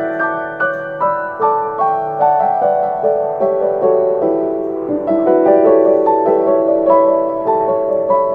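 Background music: a gentle piano melody in soft, evenly paced notes.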